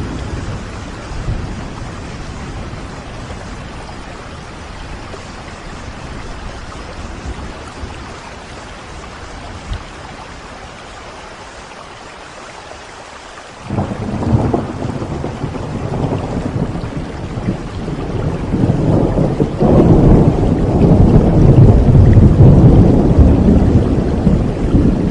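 Steady heavy rain. About halfway through, a low rumble of thunder breaks in suddenly and builds, rolling loudest near the end.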